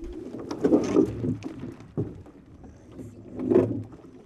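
Water sloshing and splashing around a small plywood skiff as it is pushed off and set going, with two louder swishes, one about a second in and one near the end.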